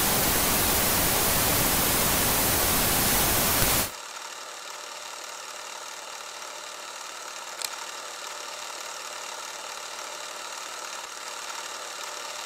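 Loud, even static-like hiss that cuts off abruptly about four seconds in. A much quieter steady hiss follows, with a single sharp click about halfway through.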